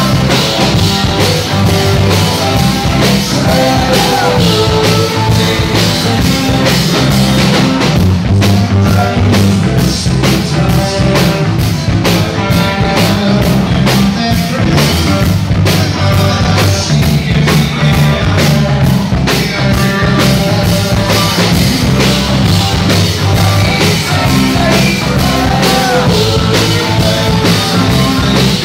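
Live rock band playing loud and steadily, with a driving drum kit, guitars and singing.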